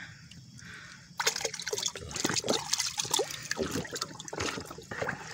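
A hand stirring and splashing water in a bucket, sloshing and splashing irregularly from about a second in, mixing homemade liquid fertilizer into 20 litres of water.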